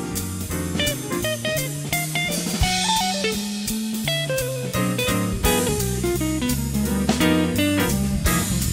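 Background music: plucked guitar over a drum kit with a steady beat.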